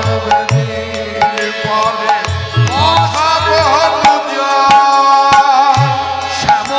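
Bengali devotional kirtan music: a hand drum plays with sliding bass strokes under steady held notes, and a sung vocal line bends in pitch around the middle.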